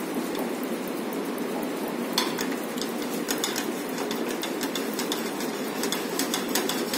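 Bananas cooking in a butter and brown-sugar syrup in a frying pan, with a steady sizzle. From about two seconds in, a wooden spatula stirs and taps against the pan in quick clicks.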